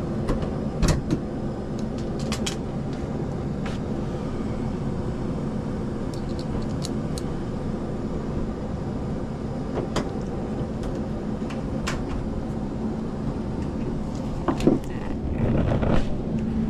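Indoor air-conditioning air handler running with a steady hum. Scattered metallic clicks come from a screwdriver working on the cabinet's panel, and a louder rustle and clatter near the end comes from the panel being handled.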